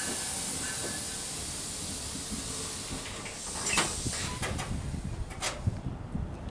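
NJ Transit multilevel commuter train coming to a stop at the platform: a high hiss from the train that fades over the first three seconds, then a few sharp short bursts, the loudest about four seconds in and another about five and a half seconds in, over a low rumble.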